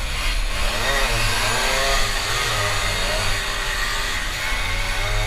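Several Tomos mopeds' small two-stroke engines revving hard, their pitch rising and falling over one another as they race through tight corners.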